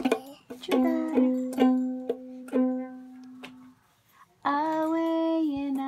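Ukulele strummed unfretted by a toddler, about two strums a second, the open strings ringing and fading away. After a short pause, a voice begins singing a long held note.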